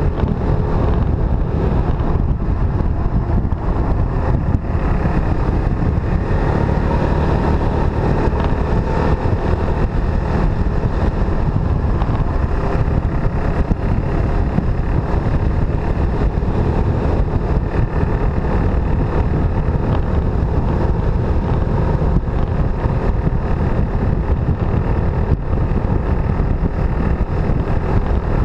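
Motorcycle engine running steadily at road speed, heard from on the moving bike, with wind rushing over the microphone.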